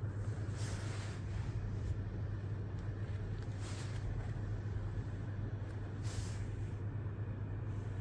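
Steady low hum of room background noise, with three soft, short rustling hisses at about one, four and six seconds in.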